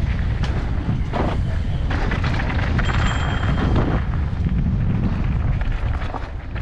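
Wind buffeting an action camera's microphone on a mountain bike descent, with tyres rolling over a dirt and gravel trail and the bike rattling. The tyre noise surges about a second in and again from two to four seconds, and a short high squeal comes about three seconds in.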